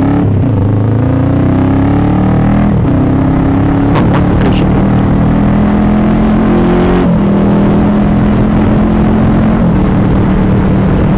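Motorcycle engine running under way, heard from the rider's seat. Its pitch climbs as it accelerates, breaks at a gear change about three seconds in, then holds steady, with another change about seven seconds in.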